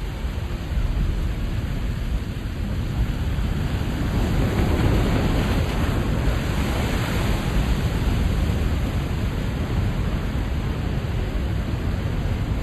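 Ocean surf at high tide: waves breaking and washing in, swelling louder with more hiss through the middle, over a steady deep rumble.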